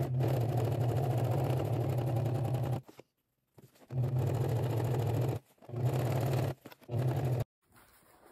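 Home sewing machine stitching through a leather bag panel along a zipper. It runs in four stretches, stopping and starting again, the longest about three seconds at the start. It falls quiet a little before the end.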